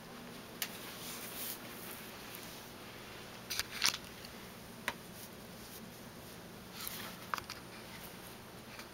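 Scattered soft clicks and rustles of a Yorkshire terrier nosing a plush toy in its fabric bed, loudest in a short cluster a little before the middle, over a faint steady low hum.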